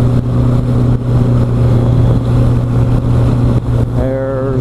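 Motorcycle engine drone and wind noise at a steady cruise of about 50 mph, picked up by a microphone inside the rider's helmet. A man's voice briefly near the end.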